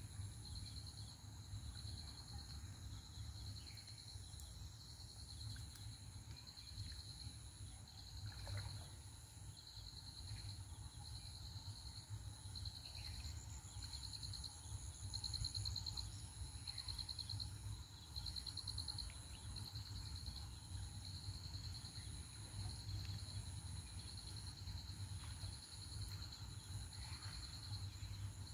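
A chorus of insects trilling high and steady, pulsing about once a second, over a low steady rumble.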